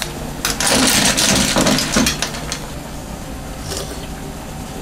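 Clams bubbling in broth in an aluminium frying pan, with clinks of a spoon against pan and shells for about two seconds, then a steady kitchen hum with a brief sip near the end as the broth is tasted from the spoon.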